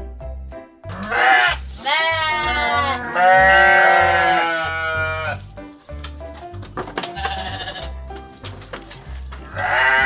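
Goat bleating several times, wavering calls with the longest held about two seconds from roughly three seconds in, and another bleat near the end, over background music with a steady beat.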